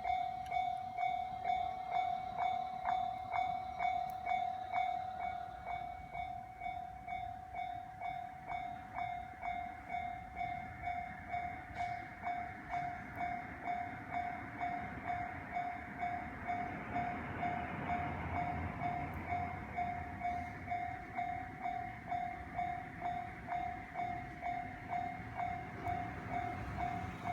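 Japanese level-crossing warning bell ringing steadily, about two strikes a second, while a train passes over the crossing, its rumble swelling to loudest about two-thirds of the way in.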